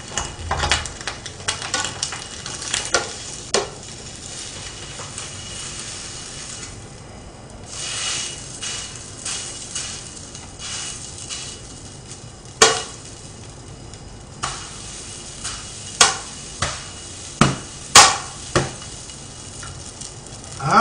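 Kimchi fried rice being scraped and knocked out of a nonstick frying pan onto a plate: repeated scraping of a utensil against the pan, with sharp knocks of the pan, the loudest in the second half.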